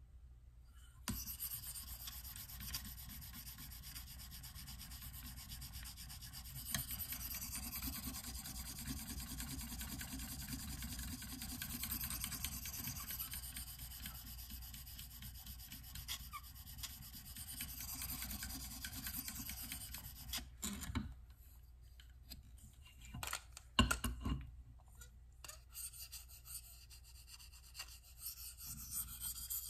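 A sharpening hone on a KME guided rod sharpener is stroked quickly back and forth along the blade of a Benchmade Mini Barrage folding knife, making a continuous rasping rub. The rasping stops about two-thirds of the way through. A few sharp clicks follow, then quieter, intermittent strokes.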